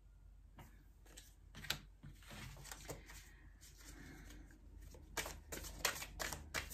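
Thoth tarot cards being handled and shuffled by hand: a few soft clicks and slides, then a quick run of sharp card snaps near the end.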